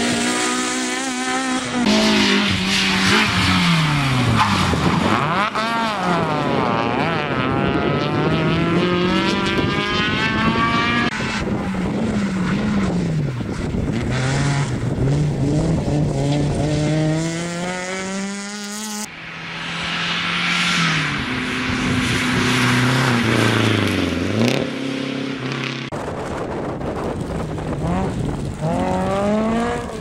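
Rally cars, among them Peugeot 206s, driven hard one after another, their engines revving high with the pitch climbing and dropping at each gear change and lift. The sound jumps abruptly from one car's pass to the next several times.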